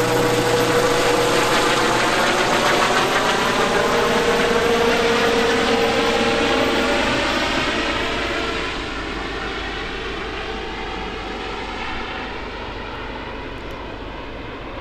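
ADAC rescue helicopter flying away after take-off: the steady whine and rotor noise of the helicopter, fading from about eight seconds in as it moves off.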